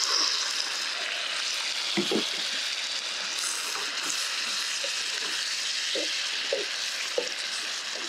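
Fresh rice noodles and marinade sizzling steadily in a hot frying pan, with a handful of short knocks as the utensil stirs them against the pan.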